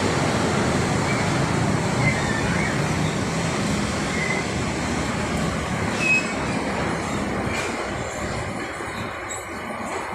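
Loud rumbling din while riding a moving escalator, with a few brief high squeaks, fading over the last few seconds.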